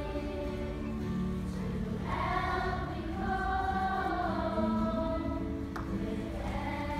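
Children's choir singing together, holding long notes, with guitar accompaniment.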